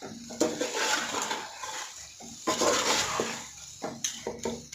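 Spoon stirring and scraping thick chicken masala in a cooking pot, in irregular strokes with a few clinks of metal on the pot.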